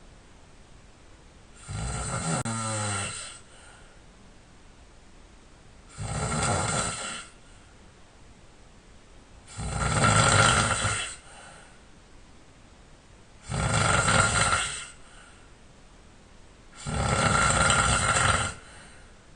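A sleeping man snoring, five long snores coming about every three and a half to four seconds with quiet breathing between; the first snore slides down in pitch.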